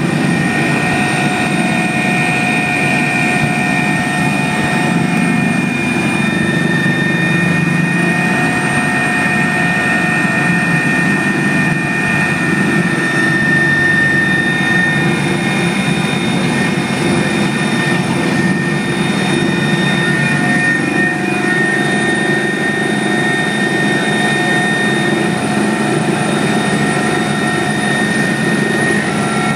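Helicopter cabin noise in flight: a steady engine and rotor drone with high, constant turbine whines over it.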